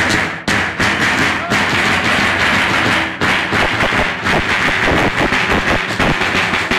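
Several large double-headed drums beaten hard and fast together: a dense, loud, continuous drumming, broken only by two short gaps, with crowd voices underneath.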